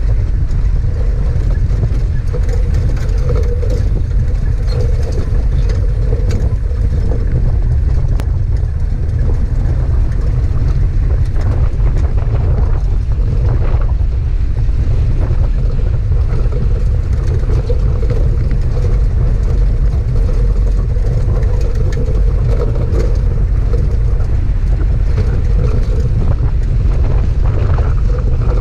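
4WD vehicle driving on a rough dirt track: a steady heavy rumble of engine and tyres on loose rocky ground, with a mid-pitched engine drone that fades in and out.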